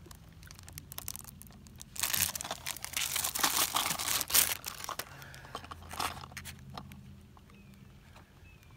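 Clear plastic bag crinkling and crackling as it is handled and pulled off a boxed crankbait lure, loudest in a long burst about two seconds in and again briefly around six seconds, with scattered light plastic clicks between.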